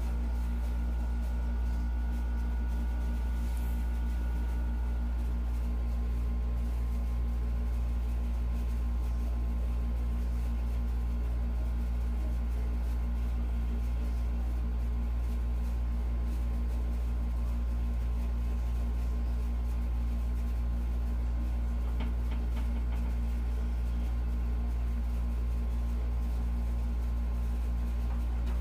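A steady low electrical-sounding hum with a few faint steady tones above it, unchanging throughout.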